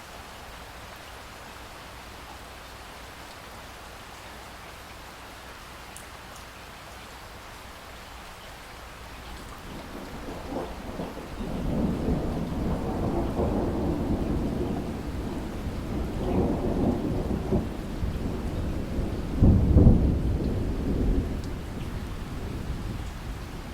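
Steady rain falling, then a long rolling rumble of thunder builds about halfway through, swells several times, reaches its loudest peal near the end and dies away.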